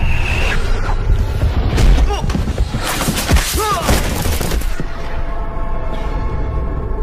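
Movie fight sound effects: a rapid run of loud hits and crashes over a low rumble, with a short cry in the middle of them, followed by dramatic music holding steady notes near the end.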